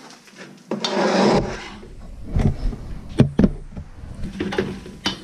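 A wooden spoon stirs and scrapes a dry flour-and-vegetable mixture in a stainless steel pot. About a second in there is a short sliding scrape as the pot is moved back onto the electric hob. Then come a few sharp knocks, two of them close together near the middle.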